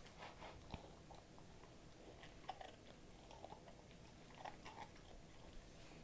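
American Staffordshire Terrier puppy eating crumbs off a person's lap: faint, irregular chewing and crunching with small mouth clicks.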